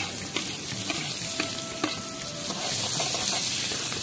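Chopped onions frying in hot oil in a steel wok over a wood fire, sizzling, the sizzle growing louder about two and a half seconds in. A steel ladle scrapes and clinks against the pan, some knocks leaving a brief metallic ring.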